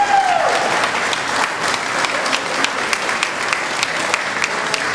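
Audience applauding, the clapping falling into a steady rhythm of about three claps a second. A held note slides down and dies away at the very start.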